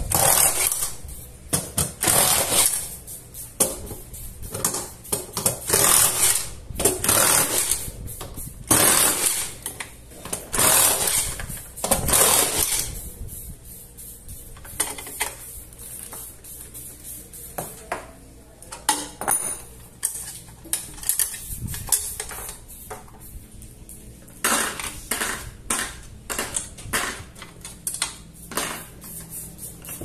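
Cordless drill run in a series of short bursts to back out screws on a washing machine's metal transmission mounting plate. After about thirteen seconds the bursts stop and light metallic clinks and clicks follow as screws and parts are handled.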